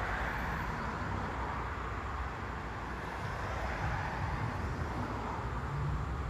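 Steady street background noise: an even low rumble with a broad hiss and no distinct events.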